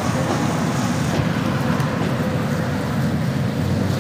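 Steady sizzling and bubbling of fish deep-frying in a large wok of mustard oil, over a continuous low rumble.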